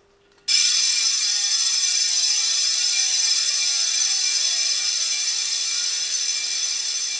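Industry Nine bicycle hub's freehub buzzing as the wheel spins freely by hand: a loud, continuous, high-pitched ratcheting of the pawls. It starts about half a second in and slowly drops in pitch and level as the wheel slows.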